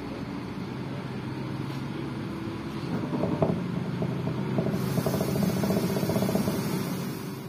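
Diesel railcar running along the track, heard from the driver's cab: a steady engine drone with wheel and rail noise. From about three seconds in comes a run of rapid rattling clicks, and a hiss joins it a little later.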